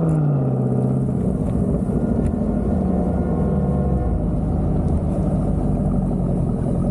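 A car engine held at high revs drops off at the start, then runs on with a steady, loud low rumble.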